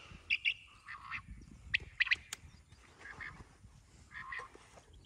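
Birds calling in short, high chirps, again and again, over a low rustling of movement through field vegetation.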